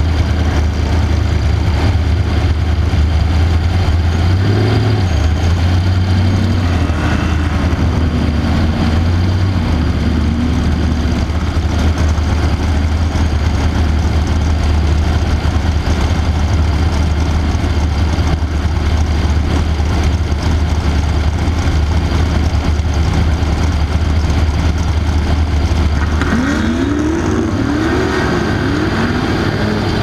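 Off-road race truck's engine running at a loud, steady idle, with revs that rise and fall a quarter of the way in and several quick rising revs near the end.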